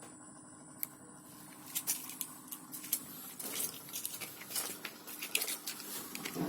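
Samsung single-tub automatic washing machine running on a test after a wiring repair: a steady hum, with irregular pattering and splashing of water in the tub starting about two seconds in.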